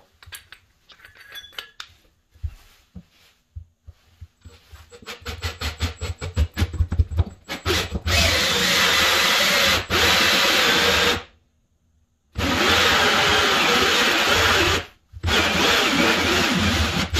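Cordless Milwaukee drill driving a 2 1/4-inch hole saw into a plywood trailer floor. A few light clicks come first, then short stuttering starts about five seconds in. After that the saw cuts steadily in three long runs with brief stops between.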